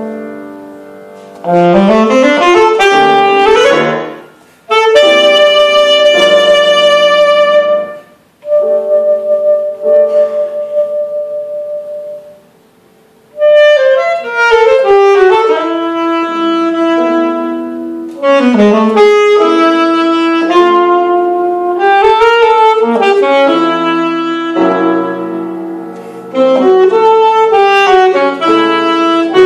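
Alto saxophone playing a melodic line over piano accompaniment, in phrases separated by short breaks, with a rising run a couple of seconds in and a brief pause about twelve seconds in.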